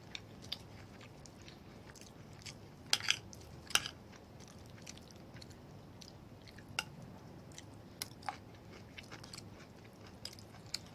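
A person chewing and eating a mouthful of beef and rice, with scattered soft mouth clicks and smacks, the loudest few about three to four seconds in.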